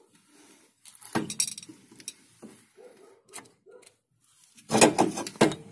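Screwdriver clinking and scraping against a Volkswagen Golf 2 brake caliper while the rubber guide-pin boots are pried out. Scattered sharp metal clicks, with a louder burst of clatter near the end.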